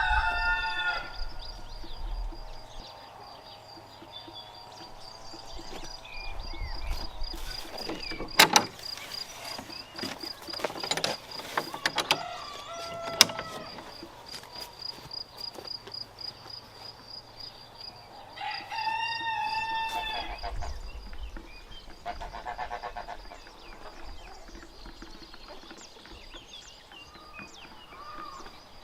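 Rooster crowing, once near the start and again about two-thirds of the way through, with a few sharp knocks in between. A steady high insect trill runs underneath.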